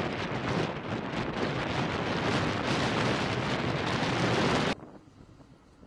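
Strong wind buffeting the microphone on an open ship's deck: a loud, gusty rushing noise that cuts off abruptly about three-quarters of the way through, leaving only faint background noise.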